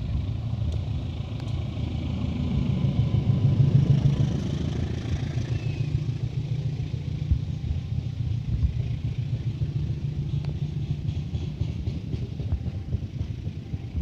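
KAI CC206 diesel-electric locomotive running with a deep, steady rumble as it departs, swelling a little about three to four seconds in.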